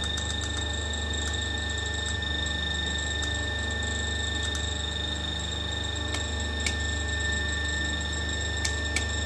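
Steady electrical hum with a thin high whine from the DVDF test bench's running motor-generator set, while it supplies the raised output voltage at double frequency. A few faint clicks come through it.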